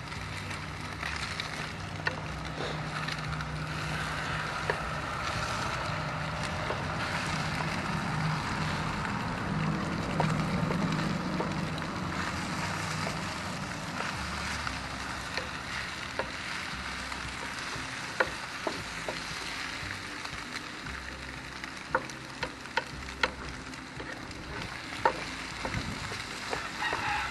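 Scrambled emu egg sizzling on a hot grill: a steady frying hiss, with a low hum in the first half and a few sharp clicks near the end.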